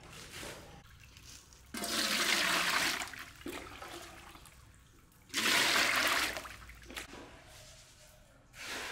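Water poured from a plastic dipper into a large aluminium pot, three pours, each a loud splashing rush lasting about a second.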